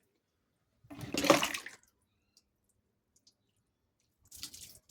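Water splashing in one loud short burst about a second in, then a run of smaller splashes and drips near the end.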